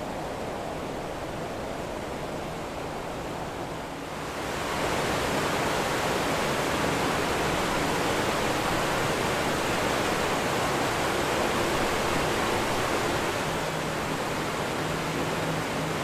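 Steady rushing roar of a tall waterfall's falling water, growing louder and fuller about four seconds in.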